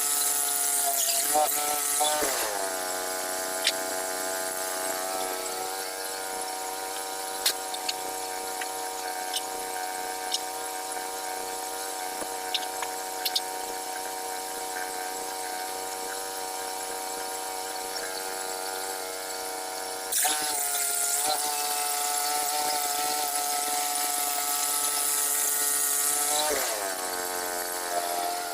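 Small gasoline engine of an HM122 bandsaw sawmill running. It throttles down from a high speed to idle about two seconds in, revs back up about twenty seconds in for several seconds, then drops to idle again near the end. A few light clicks and knocks are heard over it.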